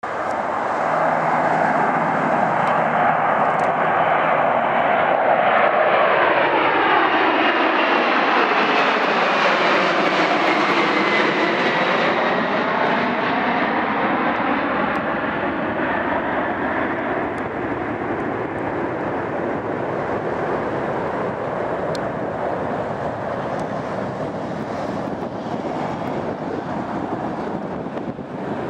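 Boeing 747-400's four turbofan engines at takeoff power as the jet climbs out and passes overhead. The jet noise builds to its loudest about eight to ten seconds in, with a whine that drops in pitch as it passes, then slowly fades as the aircraft climbs away.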